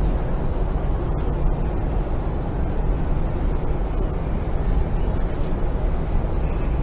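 A steady low rumble of noise with no distinct events.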